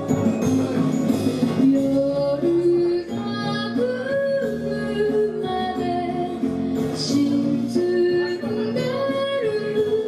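A female voice singing a slow, gently stepping melody of a Japanese children's song, with instrumental accompaniment.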